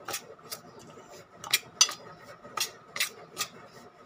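Metal spoon scraping through a dry semolina and rice-flour spice mix in a steel plate, clinking against the plate about seven times at an uneven pace.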